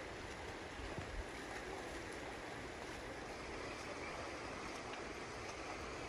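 The Soča river flowing steadily over its shallow stony bed, an even rushing of water, with a couple of low bumps about a second in.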